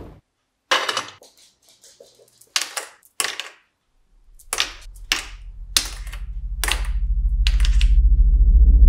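Clicks and clacks of a capsule coffee machine and its pods being handled. From about four seconds in, the machine's pump buzzes low and steadily, growing louder, while more clicks sound over it.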